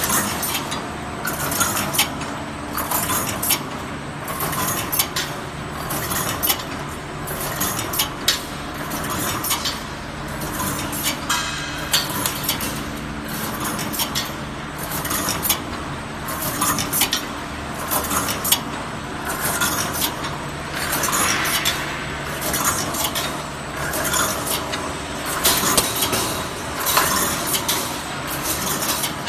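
Wire mesh welding machine for 358 fence mesh running in production: repeated sharp metallic clanks and clicks, roughly once or twice a second, over a steady machine hum.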